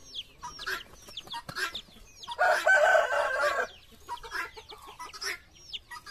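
Guinea fowl calling nonstop in short, harsh notes repeated every fraction of a second. A rooster crows once about two and a half seconds in, the loudest sound.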